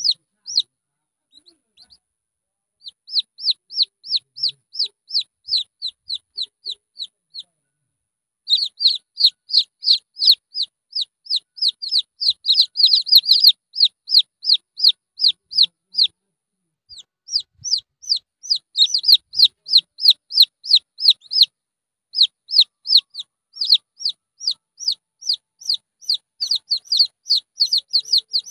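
Junglefowl chicks peeping: runs of high, downward-slurred peeps, about four a second, broken by a few short pauses.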